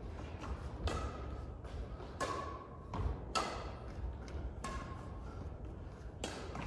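Badminton rally: rackets strike a shuttlecock five times, one hit about every second and a half, each hit echoing in a large hall.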